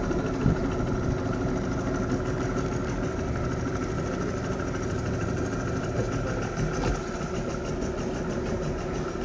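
Boat engine idling steadily, an even mechanical drone with a fine regular pulse.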